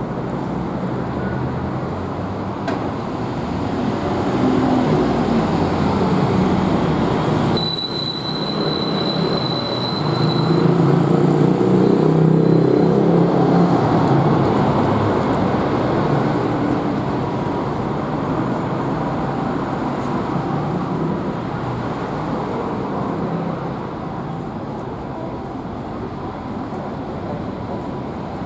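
Isuzu Erga Hybrid city bus running, a steady rumbling road and drivetrain noise that swells twice. A thin high tone sounds for about three seconds, some eight seconds in.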